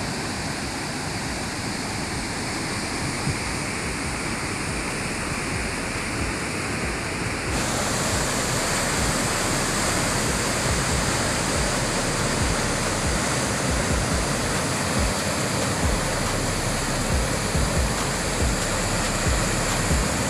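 Steady roar of a large waterfall in full monsoon-level flow, the Chitrakote falls running full to the brim. About seven seconds in the rush grows a little louder and brighter.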